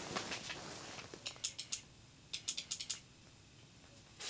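Small ice-fishing reel clicking as it is cranked, in two short runs of quick ratchet-like clicks about a second and two seconds in, after a soft rustle.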